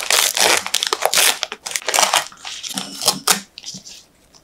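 Parchment baking paper crinkling as hands peel it down from the sides of a freshly baked cake: dense rustling for about two seconds, then softer scattered crackles that fade out.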